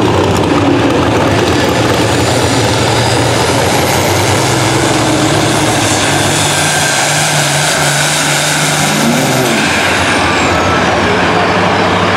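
Competition pulling vehicle's engine running hard under load through a pull, loud and steady. Its pitch steps up and a high whine climbs over the middle, then the whine falls away about two-thirds of the way through.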